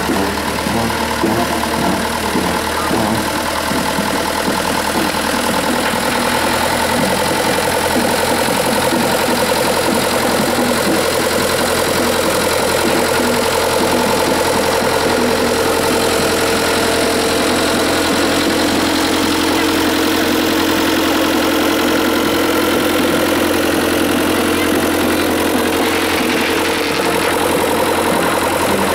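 Orange vintage farm tractor's engine running steadily at low revs as it tows a loaded trailer past at walking pace.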